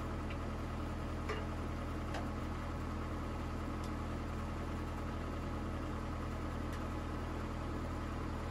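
Bobcat T180 compact track loader's diesel engine idling steadily, with a few faint clicks over the top.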